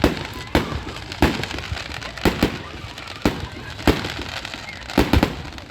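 Fireworks shells bursting: about nine sharp bangs at uneven intervals, some in quick pairs, over a steady background noise.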